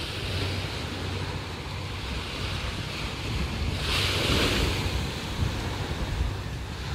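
Small waves breaking and washing up a sandy beach, with wind buffeting the microphone. The wash swells loudest about four seconds in.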